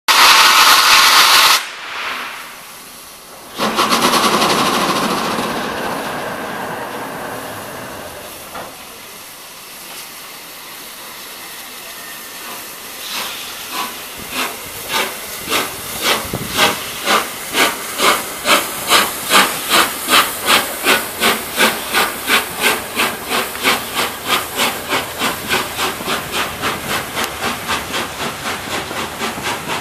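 Steam locomotive No. 60163 Tornado, a Peppercorn A1 4-6-2, starting away with a train: loud steam hissing in two blasts as the cylinder drain cocks blow, then exhaust beats that begin slowly about thirteen seconds in and quicken to about three a second as it gathers speed.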